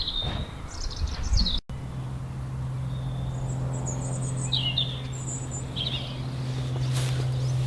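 Small birds chirping in short high phrases over a steady low hum, which comes in after a brief break in the sound about a second and a half in. A few faint clicks sound near the end.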